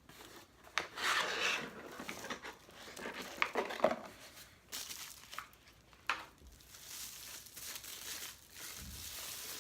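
Packaging crinkling and rustling as it is handled, in irregular bursts, loudest about a second in and again near four seconds.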